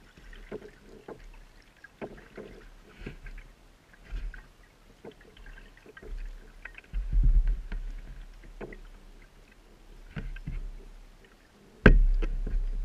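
Kayak paddling in calm water: paddle blades dipping and dripping with light splashes and small clicks, and a sharp knock near the end.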